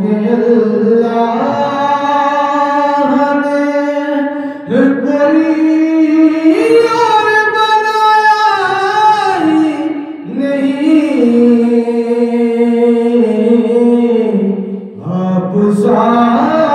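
A man singing a naat unaccompanied, holding long notes with sliding ornaments, with three short breaks for breath between phrases. The middle phrase climbs to higher notes before falling back.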